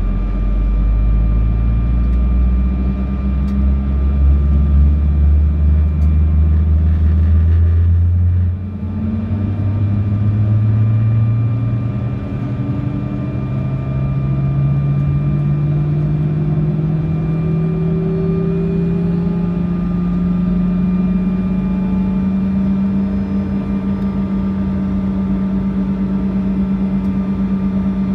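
Bombardier CRJ-200's rear-mounted turbofan spooling up during engine start, heard inside the cabin: a rising whine that climbs for about ten seconds and then holds steady at idle. Before it, a steady low drone that drops away about eight seconds in.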